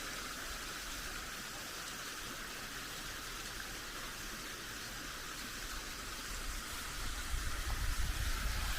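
Free-falling waterfall and creek giving a steady hiss of falling and running water. A low, fluttering rumble comes in for the last couple of seconds.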